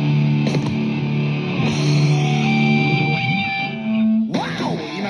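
Background rock music led by guitar, with held notes and a sudden change about four seconds in, where a rising sliding note comes in.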